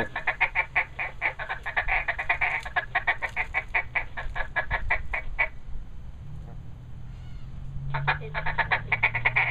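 Recorded duck quacking from a duck call iPhone app, played through a small battery-powered Danelectro practice amp: a rapid run of quacks, about five a second. It stops about five and a half seconds in and starts again near the end. A low steady hum comes in during the pause.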